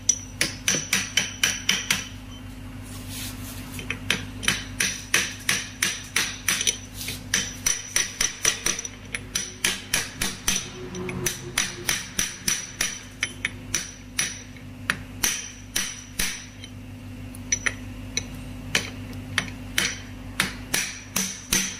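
Socket wrench and extension working the nut on the end of a manual gearbox shaft: repeated sharp metallic clicks, about three to four a second, each ringing slightly, with a few short pauses.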